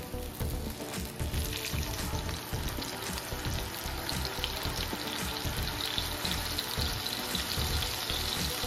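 Seasoned blue marlin steak sizzling in hot oil in a nonstick frying pan. The sizzle starts about a second in, as the steak is laid in, and grows louder.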